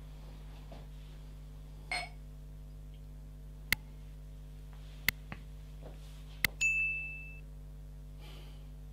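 Glassware being handled: a few sharp clicks and taps, then a glass clinks about two-thirds of the way in with a short, high ring that dies away. A low, steady hum runs underneath.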